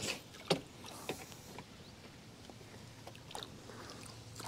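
A few faint, sharp clicks and taps: three close together in the first second and another little cluster a bit past three seconds, with little else between them.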